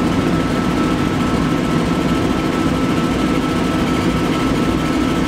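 Steady, loud rushing of a laser cutter's exhaust blower and air-assist pump running, with a faint steady whine and low hum.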